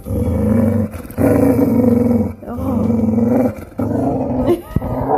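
Boxer dog growling in four long, low, drawn-out growls with short breaks between: a needy, attention-seeking grumble demanding more belly rubs.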